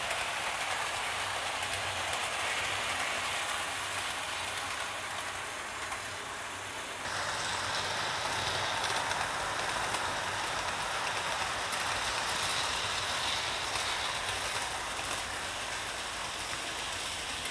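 00 gauge model A4 locomotive running with its coaches on the layout: an even running hiss of the motor and wheels rolling on the rails, with no rhythm. It gets louder about seven seconds in.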